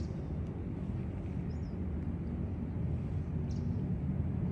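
Outdoor background: a steady low rumble, with a few faint high bird chirps now and then.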